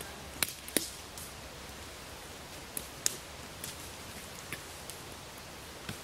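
Scattered sharp snaps and clicks of twigs and dry brush as people move through the plantation undergrowth, over a steady outdoor hiss.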